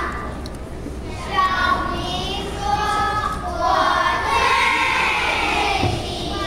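A group of young children reciting a Mandarin Chinese poem in unison, their many voices chanting together in a drawn-out, sing-song chorus that comes in about a second in.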